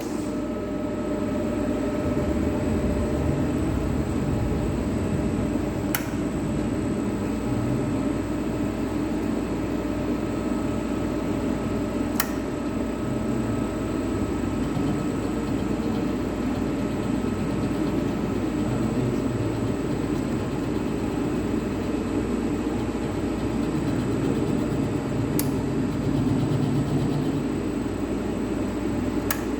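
CNC lathe running steadily while the tool takes a facing cut across the end of the workpiece, the cut that sets the Z zero offset. Four short sharp clicks come at irregular moments over the hum.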